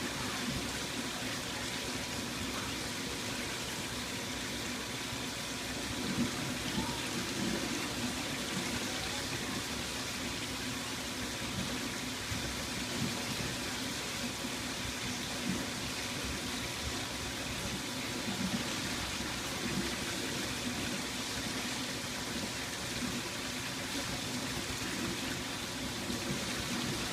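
Water gurgling steadily, with small louder bubbling spells now and then.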